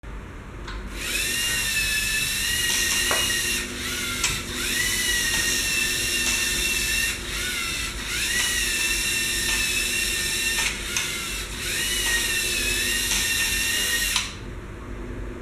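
LEGO Mindstorms EV3 motors driving a floor-wiper robot: a high whine that rises as the motors spin up, holds steady for about three seconds, then cuts out and starts again, about four times over. It drops much quieter near the end.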